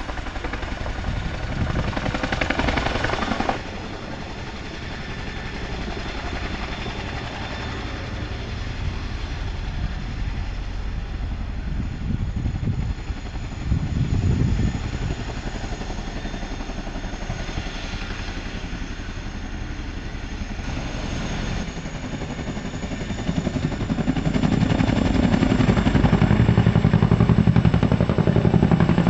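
Boeing CH-47F Chinook tandem-rotor helicopter running on its twin turboshaft engines: a fast, steady rotor-blade chop over turbine noise, with a faint high whine. It gets louder about three-quarters of the way in as it pulls power and lifts off into a low hover.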